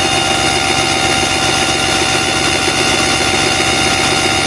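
Mercury outboard engine with ADI ignition turning over steadily on its electric starter for an ignition timing check.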